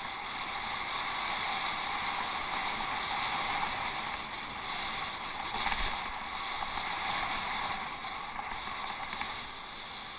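A bicycle being ridden: a steady rolling hiss of tyres on the ground, swelling a little in the middle and easing toward the end.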